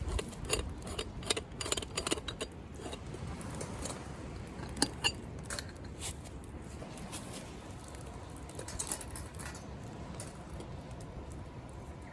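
Light metallic clinks and taps: a quick cluster over the first two and a half seconds, a single sharper one about five seconds in, and a few more around nine seconds, over a steady low rumble.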